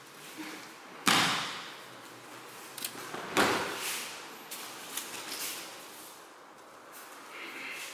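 Two heavy thumps about two and a half seconds apart, each dying away over about half a second: an aikido partner being thrown and landing on the dojo mats, with lighter shuffles and taps of feet on the mats in between.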